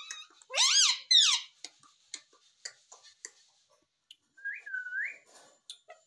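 Indian ringneck parrot calling: two loud screeches that rise and fall, about half a second in, then a run of light clicks, and a softer two-note whistle near the end.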